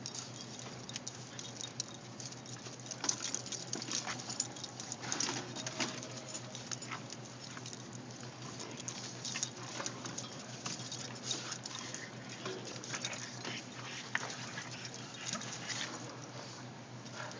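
Boston terrier, English bulldog and bulldog–shih tzu mix scuffling in play: paws and claws patter and scrape on carpet, with frequent light clicks as they wrestle and tug at a rope toy. A steady low hum sits underneath.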